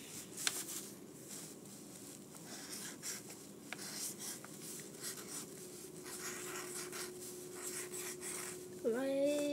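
Soft scratching and rubbing of a marker on paper and paper being handled, with a few small clicks. A faint steady hum comes in about halfway, and a short vocal sound comes near the end.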